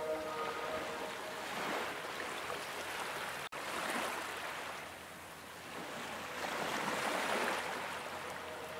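Ocean surf: waves breaking and washing up the beach, the rushing swelling and ebbing every couple of seconds. The sound cuts out for an instant about three and a half seconds in.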